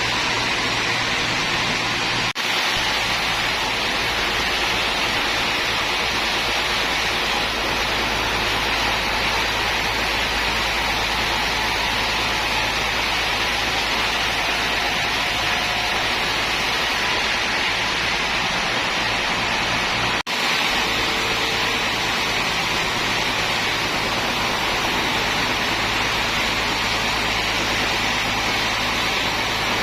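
Sawmill machinery running steadily: a dense, even rushing noise over a low hum, cut off for an instant twice.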